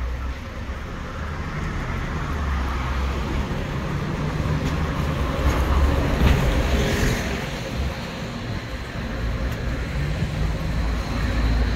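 City street traffic, with an articulated city bus driving past close by, loudest about halfway through.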